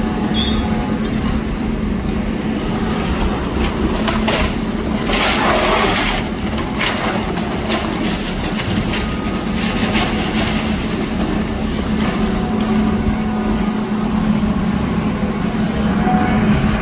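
Demolition excavator running steadily, with a burst of crunching and clattering debris about four to seven seconds in, and wind rumbling on the microphone.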